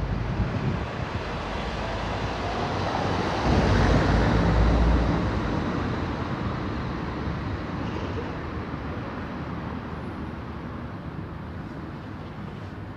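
Street traffic noise, with a vehicle passing close by about four seconds in: it grows louder, rumbles deepest as it passes, then slowly fades away.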